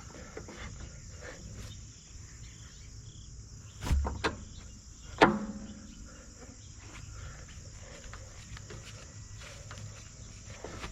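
Steel hydraulic quick-connect coupler being worked by hand: a dull thump about four seconds in, then a sharp metallic clink with a short ring just after five seconds, as the fitting fails to latch. Crickets chirr steadily behind it.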